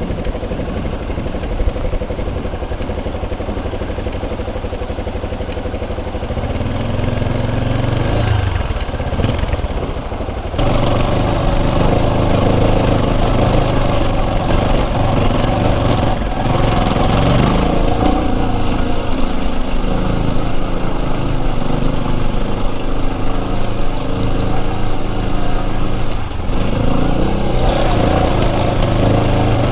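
Yamaha Serow 250's single-cylinder four-stroke engine running while the motorcycle is ridden. The engine note turns abruptly louder and fuller about ten seconds in.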